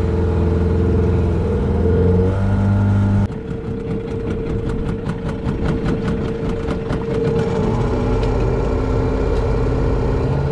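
Outboard motor on a small aluminium boat running under way, then throttled back suddenly about three seconds in to a lower, rougher idle.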